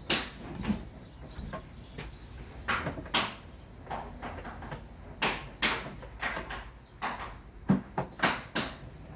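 Plastic front cowl of a Honda PCX125 scooter being pried apart with a screwdriver: irregular sharp clicks and knocks of plastic panels and clips, about a dozen spread over several seconds.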